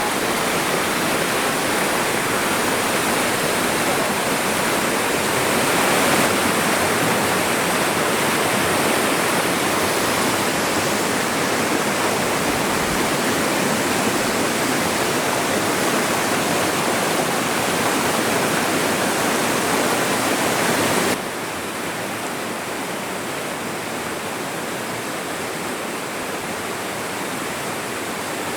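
Steavenson Falls waterfall: a steady rush of falling water. About three-quarters of the way through it suddenly becomes a little quieter.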